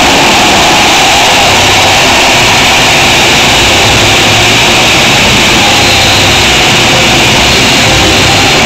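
A packed stadium crowd cheering steadily, loud enough to overload the microphone into a dense, distorted wash of noise.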